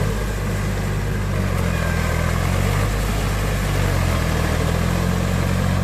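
Powertrac Euro 45 Plus tractor's three-cylinder diesel engine running steadily, a low drone with small shifts in pitch.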